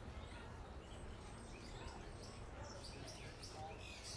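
Faint outdoor ambience: a low steady rumble with scattered short, high chirps that come more often near the end.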